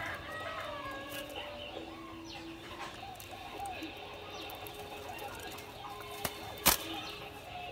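Caged spotted doves scuffling with wings flapping, over short bird chirps and calls, with one sharp knock a little before the end.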